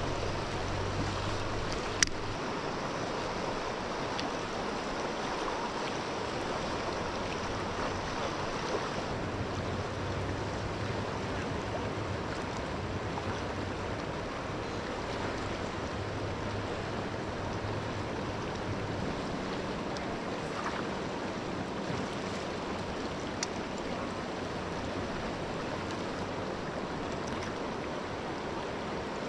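River water flowing steadily past a gravel shore, an even rushing sound with no pauses. A single sharp click sounds about two seconds in.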